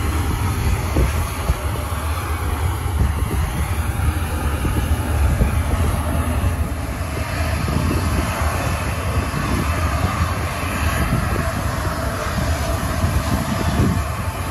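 Jet engines of a Boeing C-17 Globemaster III, four Pratt & Whitney F117 turbofans, running steadily at low taxi power close by, with a faint turbine whine over the jet noise. Wind buffets the microphone with a low rumble.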